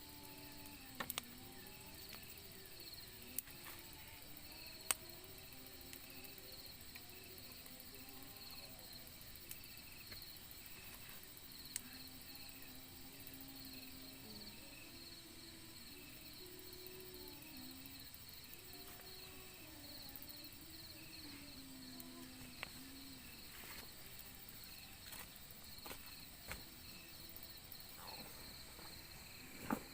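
Crickets and other insects chirping in a steady chorus of rapid, evenly repeating high pulses over a constant thin high whine, with a few sharp clicks and a faint low wavering sound underneath.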